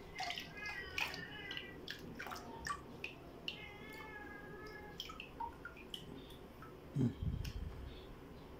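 Water dripping and splashing lightly in a plastic bucket as a dipper is handled in it, with a cat meowing twice, each call drawn out and wavering. A dull bump near the end.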